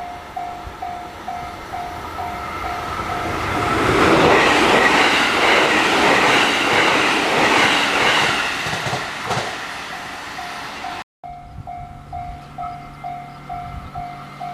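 Japanese level-crossing warning bell ringing about three times a second while a train passes through the crossing. The train is loudest midway and drowns the bell. Near the end, after a short break, the bell is ringing again.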